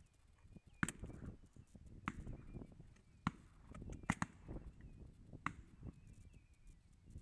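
Quiet handling noises: about six sharp clicks and knocks at irregular intervals over a low rumble, with faint thin high whistles in the background.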